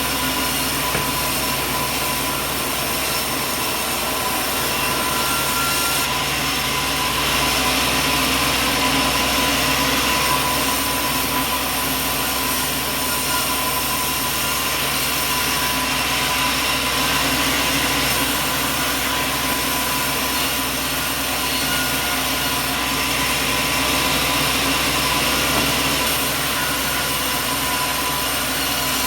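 Sawmill machinery running steadily: a loud, unbroken mechanical noise with several constant high tones running through it.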